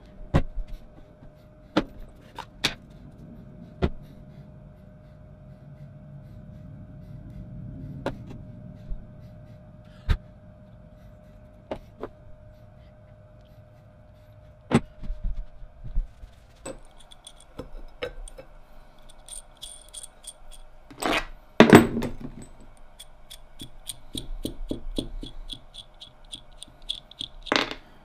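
Metal drill press parts being handled and set down on a workbench: scattered clinks and knocks, growing into a busier run of rattling and clicking in the last ten seconds, with the loudest clatter about two thirds of the way in.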